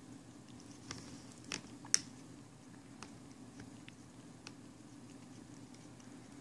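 Tabby cat licking a potato chip held in a hand: a scatter of small, sharp clicks and crackles from tongue and chip, the loudest about two seconds in, over a faint steady low hum.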